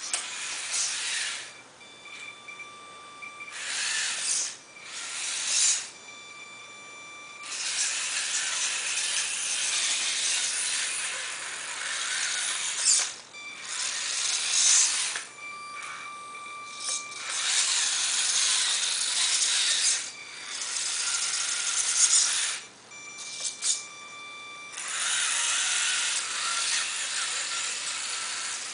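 Small electric motor and gears of a 1/32-scale mini 4WD RC truck running in bursts of a few seconds as it is driven, stopping and starting about eight times. In the pauses a steady high-pitched tone remains.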